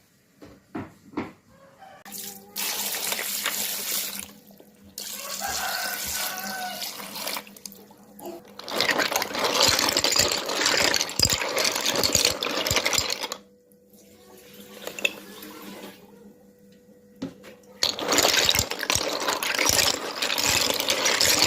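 Water running from a tap into a sink, turned on and off four times in spells of a few seconds each.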